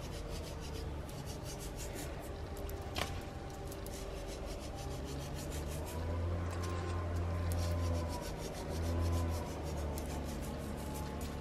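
Salt rubbed between fingertips and sprinkled in pinches over cut eggplant halves: a fine, rapid, gritty crackle of grains, over a low steady hum.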